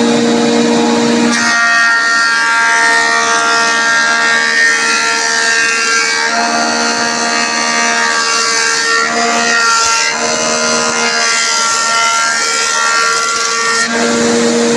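A jointer (surface planer) running with a steady hum. About a second in, a wooden board is fed across the cutterhead and the planing cut carries on as a loud whine with several high tones. Near the end the board clears and the machine drops back to its idle hum.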